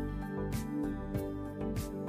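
Background music: a steady instrumental track with a regular beat and guitar-like plucked notes.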